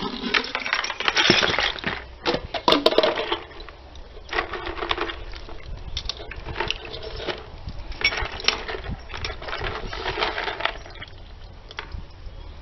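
Hands rummaging in a bucket of lemon-and-water soak: a plastic bag rustling, with irregular clinks and knocks from the old iron hardware being handled. The rustling is loudest in the first few seconds.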